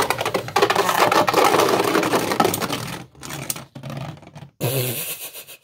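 Two 3D-printed Beyblades spinning in a plastic stadium, clattering and scraping as they collide and grind together, in a dense rattle for about three seconds, then sparser knocks. The scraping fits the V8's frame, which the owner says scrapes the stadium too much. The sound cuts off suddenly near the end.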